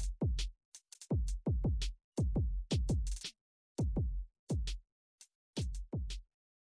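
Background electronic music with a drum-machine beat: deep kick drums that drop in pitch, with short sharp ticks on top.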